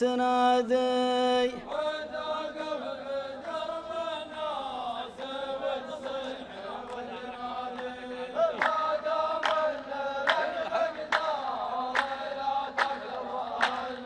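The poet's sung line ends about a second and a half in, then a male chorus of two rows chants the verse back in unison in the traditional qalta (muhawara) style, clapping together on a slow steady beat, about one clap every 0.8 seconds. The claps grow louder in the second half.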